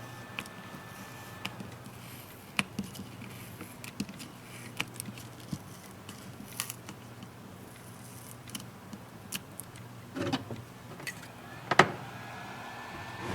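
Small hard clicks and taps of tablet parts and tools being handled while a frame is worked off the old LCD, scattered irregularly, with a short cluster about ten seconds in and one sharper click near the end, over a steady low hum.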